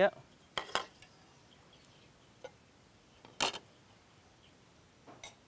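A few sparse, sharp clicks and knocks of kitchen utensils against the soup pot and bowl, the loudest about three and a half seconds in, with two close together near the end.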